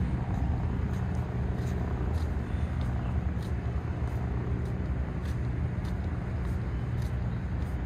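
Steady low rumble of distant engines and city traffic, with faint footsteps ticking about every half second.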